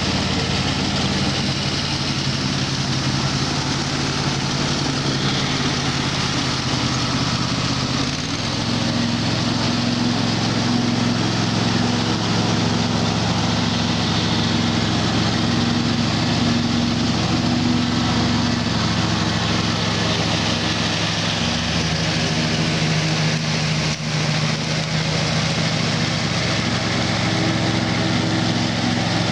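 Riding lawnmower's small engine running steadily under load, its note shifting about eight seconds in.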